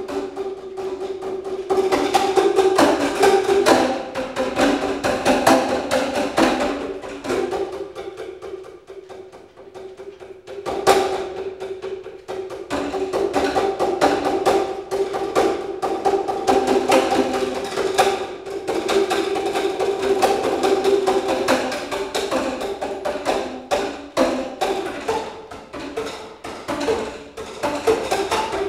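Percussive accompaniment music for a dance exercise: quick, clicky strikes like a wood block over a held pitched note. It thins out and drops in level about eight seconds in, then comes back in full a little after ten seconds.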